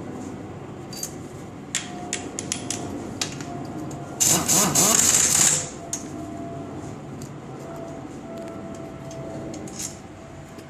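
Metal parts and hand tools clicking and clattering during gearbox work, with one loud burst of hissing noise about four seconds in that lasts about a second and a half.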